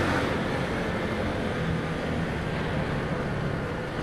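Bajaj V15 motorcycle's single-cylinder engine running at steady cruising speed through a concrete tunnel, mixed with wind and road noise while a truck is passed alongside; slightly quieter near the end.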